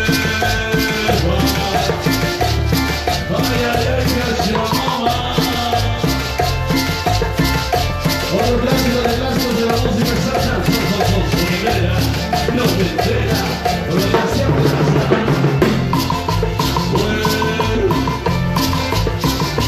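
Live band playing Latin dance music, with steady shaker and drum percussion under the melody.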